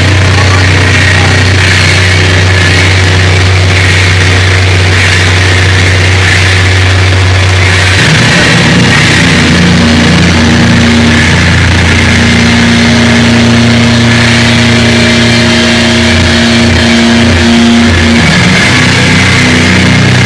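Live rock band playing loud, heavily distorted sustained guitar and bass drone, recorded on a phone at full level. A low held note gives way to a higher one about eight seconds in.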